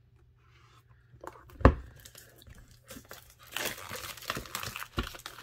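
A sharp knock as an oracle card deck box is set down on a wooden desk, then the box's wrapping crinkling and tearing as it is opened, with a second knock near the end.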